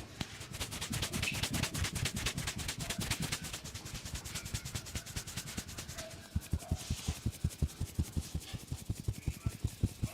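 Rapid, even percussive slaps of a barber's hands in a rough massage, several strikes a second. About six seconds in they turn into deeper, heavier thumps.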